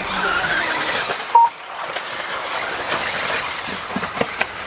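13.5T brushless 4WD electric RC buggies racing: a steady hiss of motors and tyres with a brief rising whine at the start, a single short sharp beep about a second and a half in, and a few quick knocks near the end.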